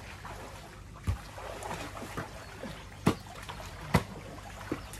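Swimming-pool water splashing and sloshing as several people move about in it, with three sharp slaps: about a second in, at three seconds and at four.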